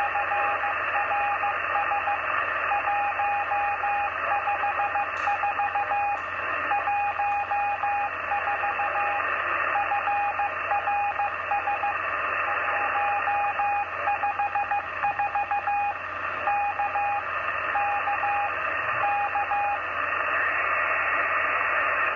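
Morse code (CW) signal received in upper sideband on 27.005 MHz by an Icom IC-706MKIIG transceiver: a single mid-pitched tone keyed on and off in dots and dashes over steady band hiss, a CQ DX call from a station on the 11-metre CB band. The keying stops near the end, leaving only the hiss.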